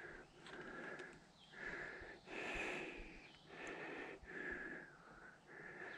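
Faint, heavy breathing of a person, a breath roughly every second.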